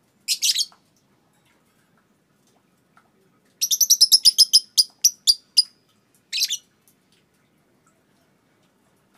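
Young Fischer's lovebird, about two and a half months old, calling in high, sharp notes. A brief chatter comes first, then about three and a half seconds in a rapid run of about a dozen 'kek' notes that spreads out toward its end, then another brief chatter.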